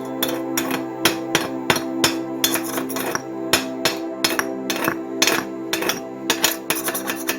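Repeated sharp metallic strikes, like hammering on steel, coming several times a second and unevenly spaced, over background music with steady held tones.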